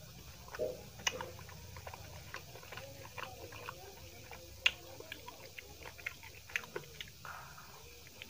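Close-miked chewing of rice and drumstick-potato curry eaten by hand: a steady run of wet mouth smacks and small clicks, the sharpest about four and a half seconds in.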